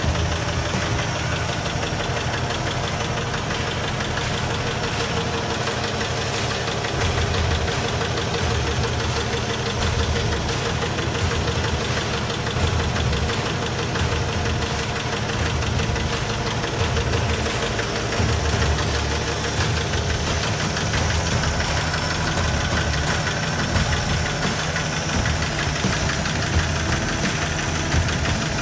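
1962 Chevy C10 pickup's engine idling steadily.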